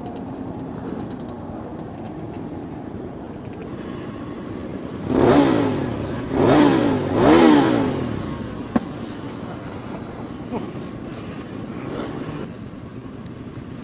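A pack of motorcycles idling and rolling off together. About five seconds in, engines rev up and pull away in three swells that rise and fall in pitch over a few seconds, then settle back to a steady running sound.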